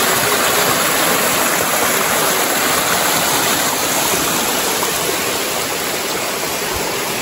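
Small forest stream spilling down a little waterfall over rocks: a steady rush and splash of falling water, easing slightly toward the end.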